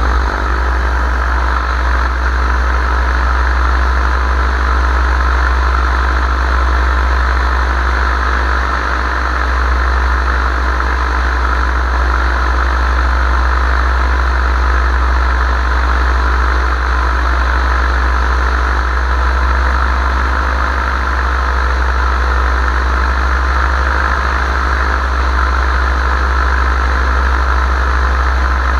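Paramotor engine and propeller running steadily in flight, at an even, unchanging pitch.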